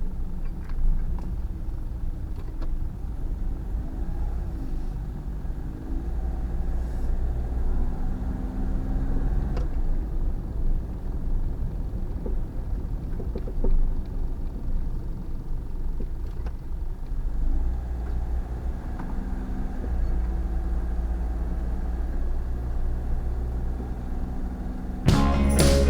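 Suzuki Every kei van on the move: steady engine and road rumble with the engine note shifting up and down, and a few faint, short knocks. The knocks fit the suspension clunk that was traced to a worn stabilizer link.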